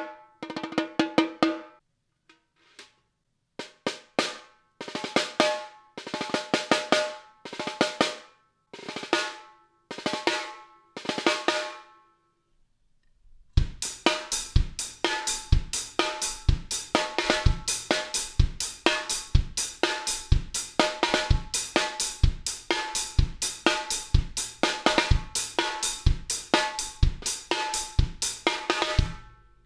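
Reclaimed oak barnwood 10x5.5 stave mini snare drum played alone in short phrases of strokes and rolls with pauses between them, the early strokes carrying a pitched ring. From about 13 seconds in, a steady drum-kit groove: bass drum, hi-hat and cymbals with the snare, stopping just before the end.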